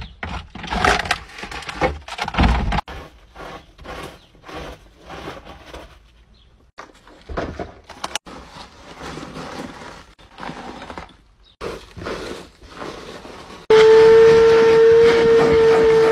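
Plastic wrappers and dry debris rustling and crinkling as trash is gathered by hand from car floor carpet, with a stiff brush scrubbing the carpet in repeated short strokes. Near the end a loud steady whine starts suddenly.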